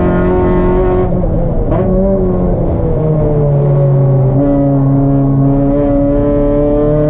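Race car engine running hard, heard from the car: its pitch drops about a second in, with a short sharp click near two seconds, then holds and steps between speeds.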